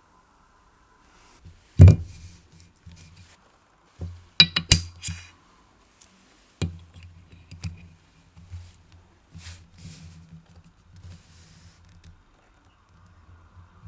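Small tools and watch parts handled on a workbench: a sharp knock about two seconds in, a quick run of metallic clicks a couple of seconds later, then lighter taps and handling noises.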